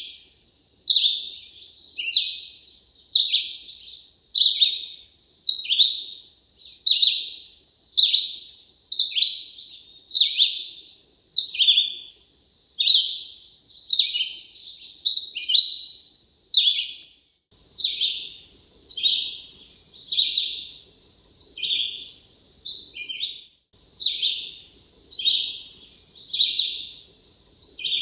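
Red-eyed vireo singing close by: short slurred phrases, each rising or falling, repeated about once a second with brief pauses between them.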